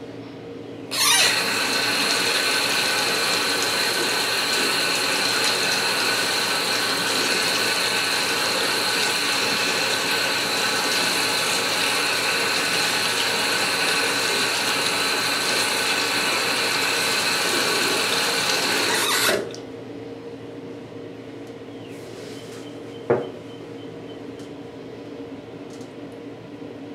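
Bathroom sink tap running full, water pouring and splashing over a toy pony's hair held under it, with a steady whine in the hiss. It is turned on about a second in and shut off after about eighteen seconds.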